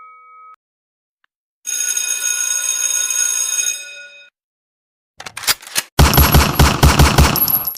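Sound-effect clips: a bell ringing for about two and a half seconds, then a few sharp clicks, then a burst of rapid machine-gun fire at about five shots a second. The gunfire is the loudest part.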